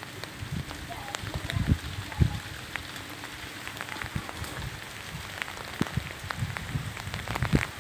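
Icy rain falling: a steady hiss of rain with many sharp, irregular ticks of ice pellets striking hard surfaces, and a few low thumps about two seconds in.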